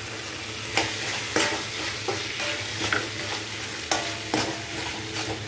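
Onion and capsicum sizzling in a metal kadai while being stir-fried. A spatula scrapes and knocks against the pan every half second to a second.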